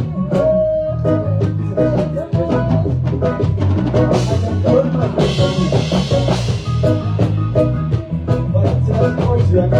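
Live band playing through a PA during a sound check: drum kit keeping a steady beat over bass guitar and guitar, with a cymbal wash from about four to six and a half seconds in.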